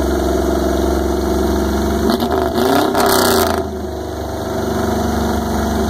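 Lifted mud truck's engine idling steadily, revved up and back down about two seconds in with a rush of noise, then settling back to idle.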